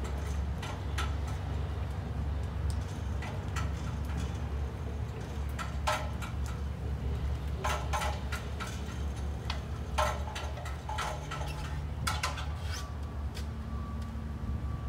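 Irregular light knocks and clicks, one to three seconds apart, over a steady low rumble.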